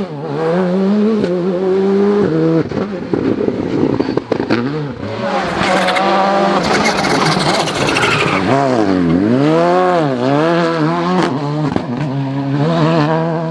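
Rally cars' turbocharged 1.6-litre four-cylinder engines, first a Škoda Fabia R5 and then a Volkswagen Polo GTI R5, revving hard through tight bends. The pitch drops on braking and downshifts, then climbs again under acceleration, with a few sharp cracks on gear changes.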